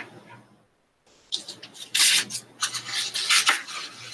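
Paper being handled close to the microphone: irregular rustling and crinkling that starts about a second in and carries on in uneven bursts.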